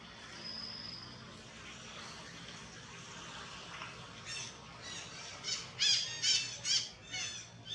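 Infant long-tailed macaque giving a rapid series of short, high-pitched cries, starting about halfway through and loudest near the end.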